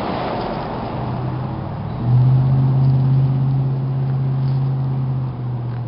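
A steady low engine hum starts about a second in, grows louder about two seconds in, and cuts off just before the end, over wind noise on the microphone.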